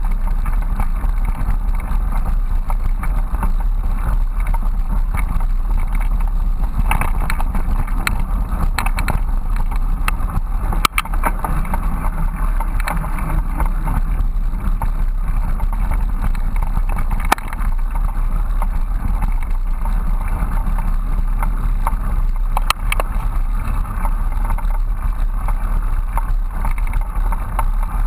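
Steady rumble and wind noise of a bicycle rolling along a dirt trail, heard through a handlebar-mounted GoPro in its housing, with a few sharp knocks over the top.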